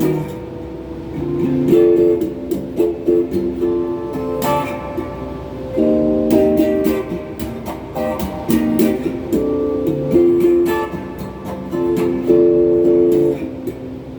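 Electric guitar (a Donner Q1 HSS strat-style guitar) played through a phaser pedal and a Klon-clone overdrive into a Crate GX30M amp, strumming a run of chords that each ring for a second or two.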